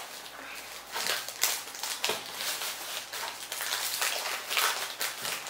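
Plastic wafer wrapper crinkling and rustling in short, irregular bursts as it is handled.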